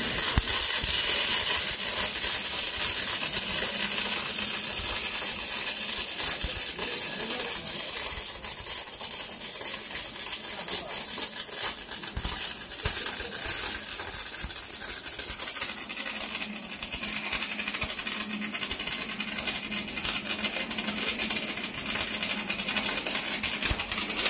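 Two MIG welding torches on a double-head automatic seam welder crackling and spitting steadily as they lay circular welds around a steering shaft. The arcs strike abruptly at the start, with a faint steady hum underneath.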